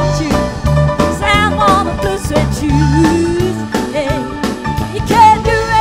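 Live pop band playing a song: female lead vocal over drum kit, electric bass and keyboard, with a steady beat.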